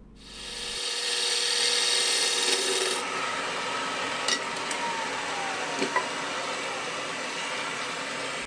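Turning tool cutting the inside of a segmented wooden ring as it spins on a lathe: a steady hiss of steel shaving wood. The sound shifts and drops a little about three seconds in.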